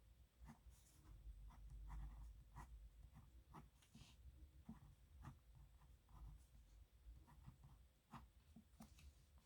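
Pen scratching on paper in quick, irregular strokes while someone writes by hand; faint.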